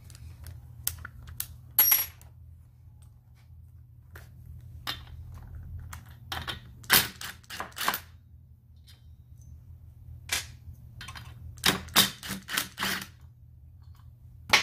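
Metal tools clicking and knocking against a brush cutter's engine while its clutch is worked loose, then a cordless impact wrench hammering in a quick burst of about a second near the end to undo the clutch. A faint low steady hum runs underneath.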